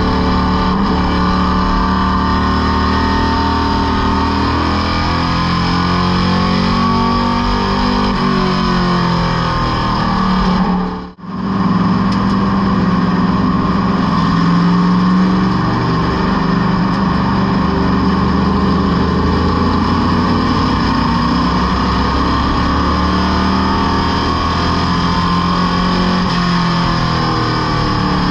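Race car engine heard from inside the cockpit under racing load, its pitch falling and climbing again twice as it lifts for the corners and accelerates out. The sound drops out briefly about eleven seconds in.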